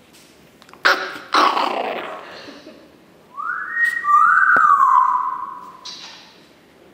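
Chihuahua puppy vocalising: two sharp yaps about a second in, then a long, high whine that lasts a couple of seconds and dips in pitch before it stops.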